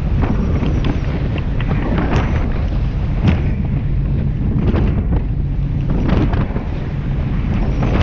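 Wind buffeting the microphone on a rigid inflatable boat running fast over choppy sea, a loud steady rumble, broken several times by sharp splashes as the hull meets waves and throws up spray.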